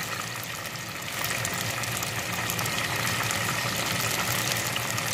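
Chicken wings deep-frying in a pot of hot oil: a steady sizzle with fine crackling, over a low steady hum.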